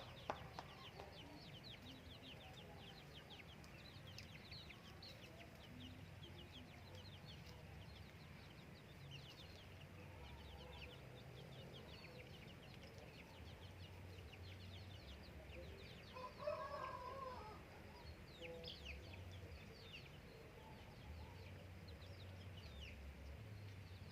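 Faint outdoor birdsong: many small high chirps run on throughout, with a chicken calling once, louder, about sixteen seconds in.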